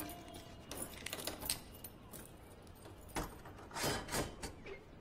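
Keys jangling and a door lock being worked: a run of irregular metallic clicks, then a few separate knocks.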